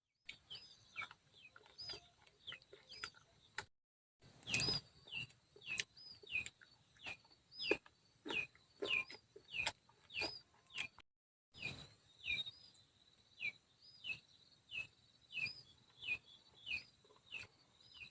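A bird calling over and over, about one and a half short chirps a second, each a quick rise and then a falling note, with sharp clicks among the calls.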